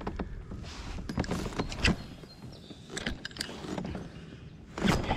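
Scattered clicks and knocks of fishing gear being handled in a kayak, with a sharper knock a little before two seconds in and a louder clatter near the end.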